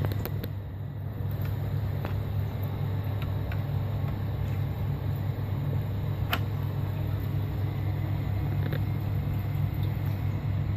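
Steady low mechanical hum, with scattered faint clicks and one sharp click a little past the middle.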